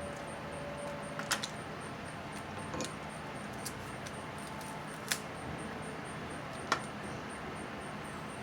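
Snow crab legs being cracked and broken open by hand while eating: about four short, sharp cracks spaced a second or two apart, over a steady background hiss.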